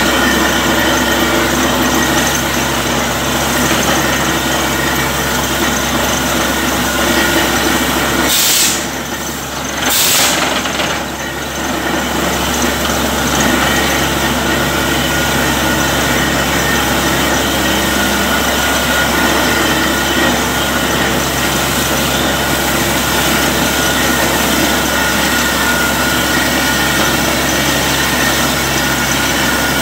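Truck-mounted borewell drilling rig running steadily under load, its engine and air compressor droning while air-blown water and rock cuttings gush out of the bore around the drill rod. The gush is the water flow the bore has struck. Two short hissing bursts come about a third of the way in.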